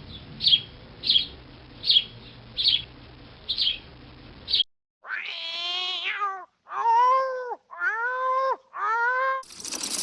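A small bird chirping, short high chirps about twice a second, then a cat meowing four times, each meow rising and falling in pitch.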